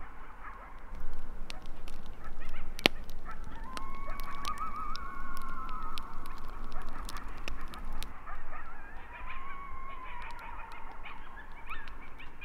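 Wild animals calling: several long, wavering cries overlap one another, with shorter broken calls in between. Scattered sharp clicks run through it, the strongest about three seconds in.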